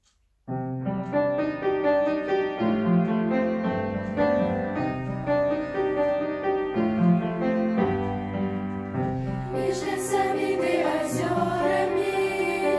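Instrumental song introduction with sustained keyboard chords, starting about half a second in. Near the end a girls' vocal ensemble starts singing over the accompaniment.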